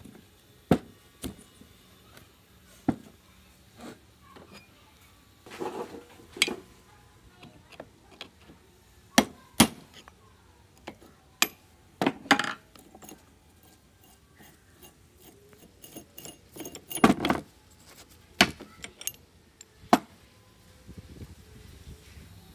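Metal tools and loose chainsaw engine parts clinking and knocking on a wooden workbench as the engine is taken apart, in irregular sharp clicks with a few louder knocks.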